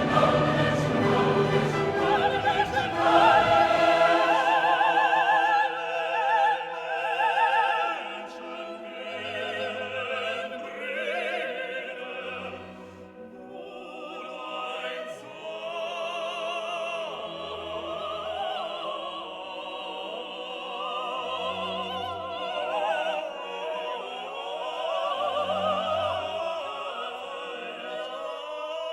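Classical music with operatic singing: a loud full choir and orchestra for the first few seconds, then softer solo voices singing with vibrato over the orchestra.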